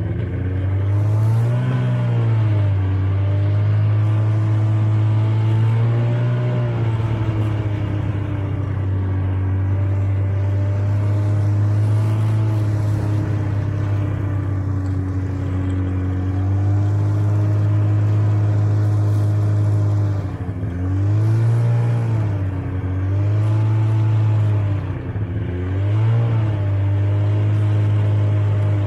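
Snowmobile engine running under the rider, its pitch holding steady between several brief rises and dips as the throttle is eased off and opened again.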